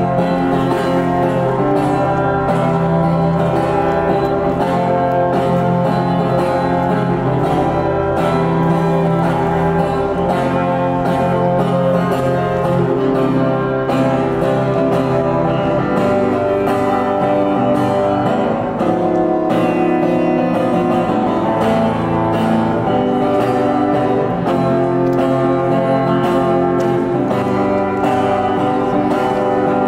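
A street busker playing guitar, a continuous run of chords and notes.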